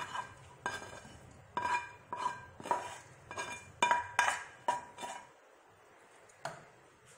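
A plastic spoon scraping and knocking against a frying pan and a metal pot while food is scraped from the pan into the pot: a quick series of clinks, each with a short ring. The clatter stops about five seconds in, with one last knock near the end.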